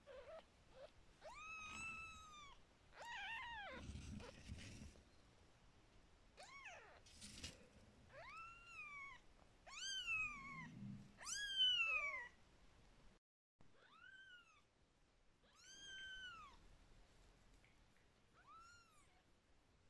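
Newborn kittens mewing while being stroked and belly-rubbed: about ten short, high-pitched mews, each rising and then falling in pitch, the loudest about halfway through. Soft rustling of fur against a towel between some of the calls.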